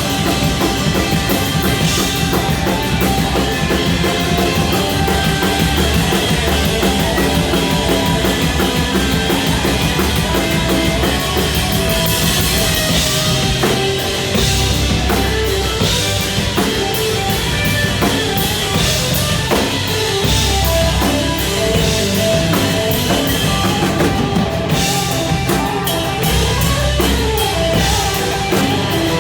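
Rock band playing an instrumental passage without vocals: drum kit, bass and electric guitar.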